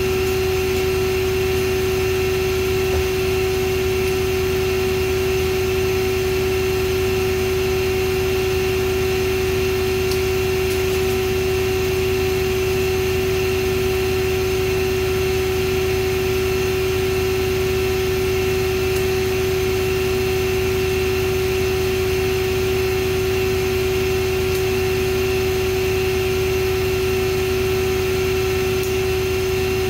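Steady, unchanging electrical hum at one constant pitch with overtones, the drone of shop machinery such as industrial battery chargers.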